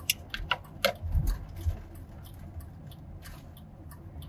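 Steady low road and engine rumble inside a moving Chevy Express van, with a quick run of sharp clicks and rattles in the first couple of seconds and scattered lighter ticks after.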